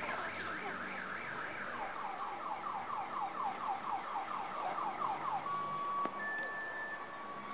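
Electronic alarm siren sweeping up in pitch over and over, several sweeps a second, switching about two seconds in to a lower, tighter sweep, and cutting off about five and a half seconds in. A few steady high ringing notes follow near the end, with a low traffic hum underneath.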